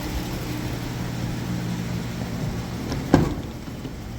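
Newly installed 3.6 L Pentastar V6 in a Ram Promaster van idling steadily and smoothly, with one sharp thump about three seconds in.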